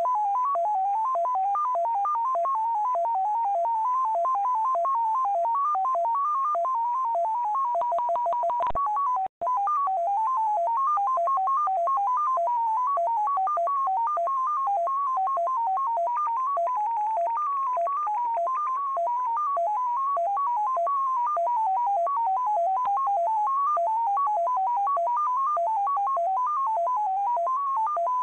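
XPA Russian numbers station heard through a shortwave receiver: a single electronic tone hopping rapidly between pitches around 1 kHz, several steps a second, each pitch standing for a digit of its coded five-figure groups (MFSK). The signal cuts out briefly with a click about nine seconds in.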